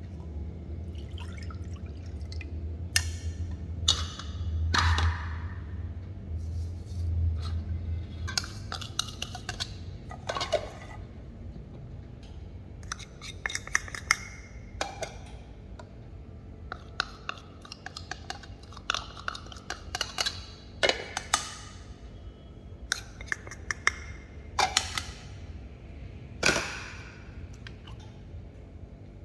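Bowls, plates and a spoon knocking and clinking against a stainless steel pan as milk is poured in and powders are tipped and scraped off into it, in a string of short sharp knocks.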